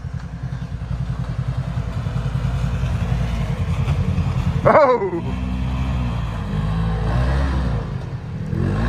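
Side-by-side off-road vehicle's engine revving as it takes an obstacle, growing louder over the first few seconds. A short shout comes about five seconds in, and after it the engine revs rise and fall.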